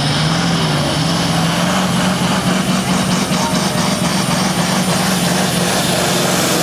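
Diesel engine of a modified 8.5-ton SuperSport pulling truck running at full throttle under heavy load while it drags the weight-transfer sled. The engine is loud and steady, its pitch holding nearly constant throughout.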